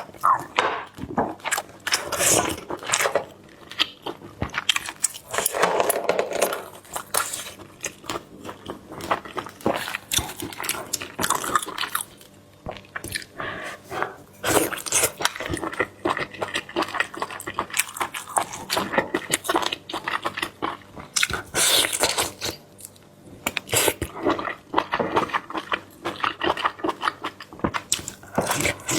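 Close-miked eating of seafood: steady chewing and biting with many small irregular clicks and scrapes of shell and utensils.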